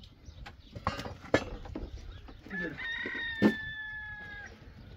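A rooster crowing once: a long held call that begins about halfway through. A few sharp knocks sound around it, the loudest while the crow is held.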